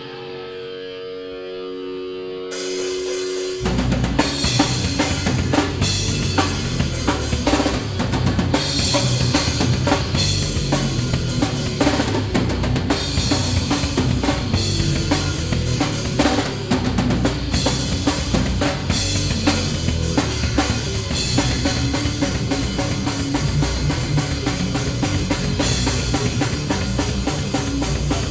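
A live band playing loud music in a mosh-pit set. Held guitar notes ring alone for the first couple of seconds, then cymbals and the full band with pounding kick and snare drums come in about three seconds in and keep playing.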